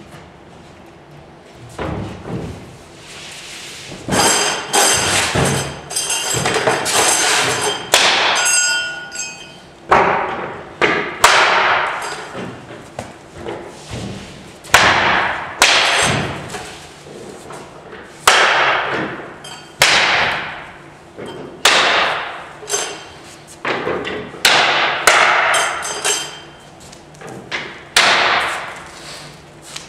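Metal clips being knocked onto the edges of plywood box panels: a long series of sharp knocks, one every second or two, each ringing briefly through the large plywood sheets.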